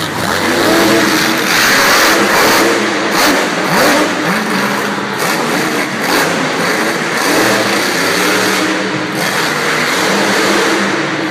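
A monster truck's supercharged V8 engine, on the Grave Digger truck, revving up and down again and again at high volume.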